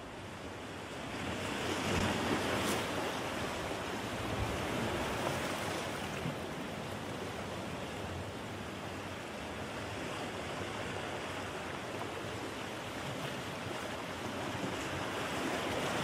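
Ocean waves washing in, with a swell building over the first two seconds and another rising near the end.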